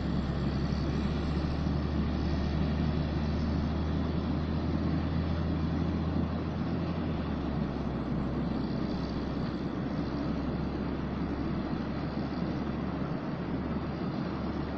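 Sugar cane train rolling past: a steady rumble of loaded cane bins running on the rails, with the diesel locomotive's low engine hum fading out after about six or seven seconds as it draws away.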